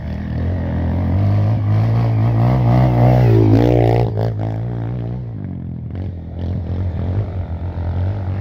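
Off-road motorcycle engine running, its pitch swinging up and down about halfway through as it revs, then settling to a steadier run.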